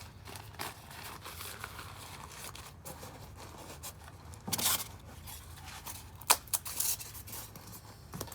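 Packing material being handled and pressed into a box: rustling and scraping, with a few louder crinkling bursts and a sharp click about six seconds in.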